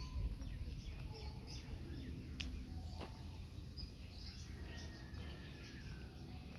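Small birds chirping and calling in scattered short notes over a steady low rumble.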